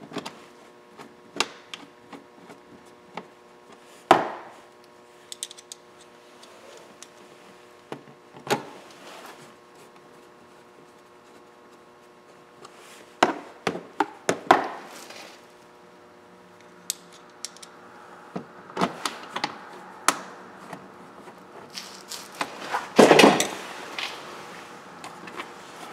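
Scattered clicks, taps and knocks of hard plastic dash trim, clips and screws being handled and fitted by hand, with a louder cluster of knocks and rattling near the end. A faint steady hum runs underneath.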